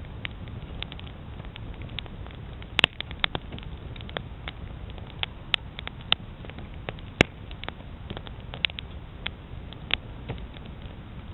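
Wood campfire crackling, with irregular sharp pops and snaps; the loudest come about three seconds in and about seven seconds in.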